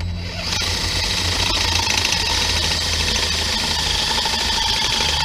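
DeWalt cordless drill running steadily under load, its bit boring into an aluminum part. It starts about half a second in with a steady whine.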